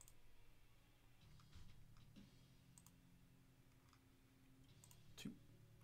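Near silence with several faint, sharp computer mouse clicks spaced about a second apart, the loudest just before the end.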